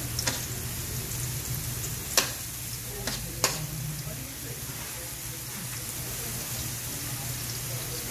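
Chopped onions sizzling in hot oil in a steel wok, a steady hiss, with a metal spoon stirring and clinking sharply against the pan twice, about two and three and a half seconds in.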